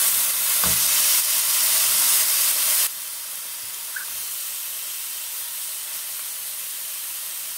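Marinated beef steaks sizzling on a hot grill pan, a steady hiss as more raw pieces are laid on. A soft knock comes just under a second in, and the sizzle drops suddenly to a quieter level about three seconds in.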